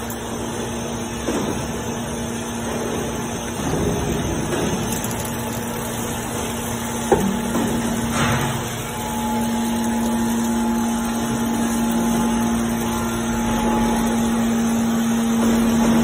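TCM MQ160 hydraulic scrap metal baler running, its hydraulic power unit giving a steady hum with clanking of the working parts. There is one sharp metallic knock about seven seconds in, and the hum grows louder and steadier from about nine seconds on.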